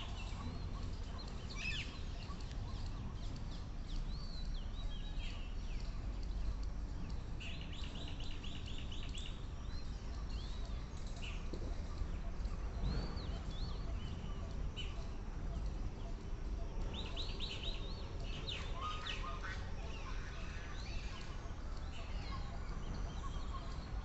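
Birds calling, with short arching notes scattered throughout and two quick runs of repeated notes, over a steady low rumble.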